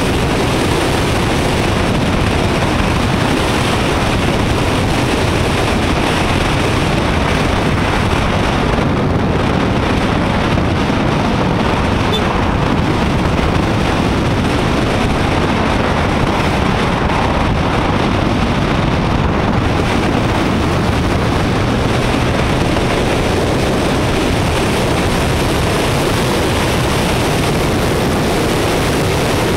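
Steady rush of wind and road noise on a motorcycle-mounted action camera's microphone while riding at road speed, with no speech.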